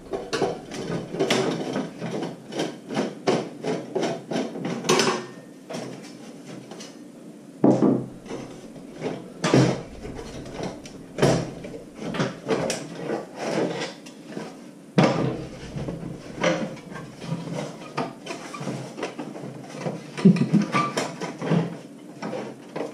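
Clicks and knocks of a screwdriver and the plastic and metal housing of a Mr. Heater Buddy propane heater being handled as the screws holding its side pieces are taken out. There is a quick run of small clicks over the first few seconds, then scattered heavier knocks as the housing is shifted.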